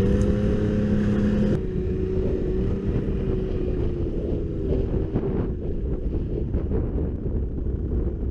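Snowmobile engine running steadily while riding, with wind buffeting the microphone.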